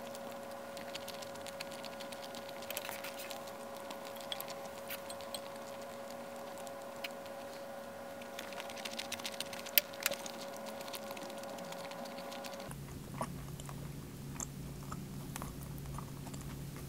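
Eating sounds: wooden chopsticks clicking and tapping against a ceramic bowl and a wooden plate, with one sharper clack about ten seconds in. A steady hum sits underneath and drops lower about thirteen seconds in.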